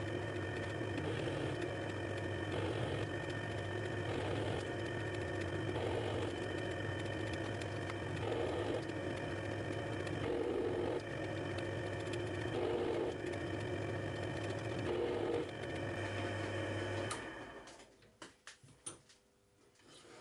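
Emco metal lathe running while a single-point HSS tool cuts an external thread: a steady motor and gear hum with a cutting noise that swells and fades every couple of seconds. About 17 seconds in the lathe is switched off and winds down within a second, leaving a few light clicks.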